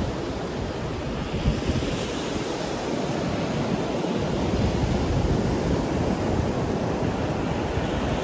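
Ocean surf washing onto a beach: a continuous, steady hiss of breaking waves. Wind rumbles on the microphone, heavier from about four seconds in.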